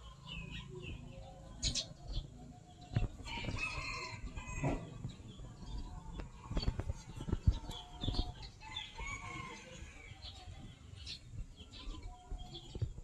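Chickens clucking and calling in short, scattered calls, with a longer call about three to four seconds in and another around nine seconds in; a few sharp clicks and knocks.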